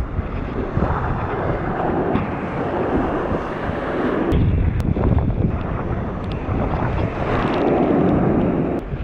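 Wind buffeting the camera's microphone, mixed with water rushing and splashing as a kitesurf surfboard rides through small choppy waves, with a few sharp ticks in it.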